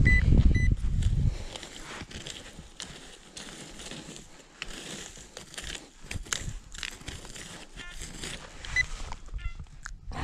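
Short electronic beeps from a handheld metal-detecting pinpointer, twice near the start and a few more near the end, over crackling and scraping of dry soil and grass being probed and raked through by hand. A low rumble fills the first second or so.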